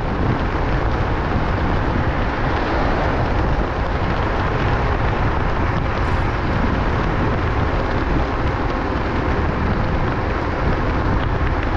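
Steady wind rush over the microphone and tyre-on-road noise from a Wolf King GT Pro electric scooter cruising along a paved road. It is an even, unbroken noise with no engine tone.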